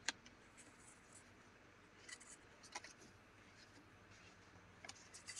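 Faint, brief taps and rustles of cardstock journaling cards being flipped through by hand and set down on a table, a few scattered clicks against near silence.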